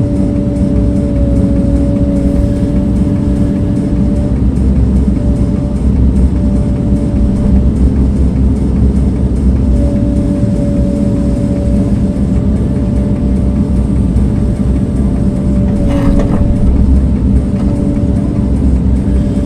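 Engine of a blade-equipped earthmoving machine running steadily, a dense low rumble with a steady whine over it that fades in and out. A brief knock sounds near the end.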